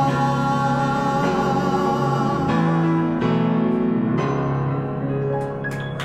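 Piano playing the closing chords of a song, each chord held for about a second before the next.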